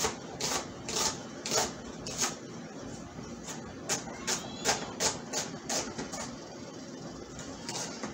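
Chef's knife chopping a purple onion on a cutting board: sharp chops about two a second, quickening near the middle, then tailing off with one last chop near the end.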